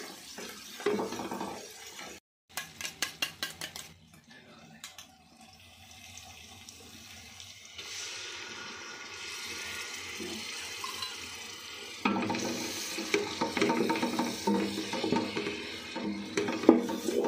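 Fried onions in hot oil in a steel pot, stirred and scraped with a wooden spoon in quick rhythmic strokes. About eight seconds in, yogurt is spooned into the oil and a steady sizzle starts; from about twelve seconds in, louder stirring and scraping clatter over the sizzle.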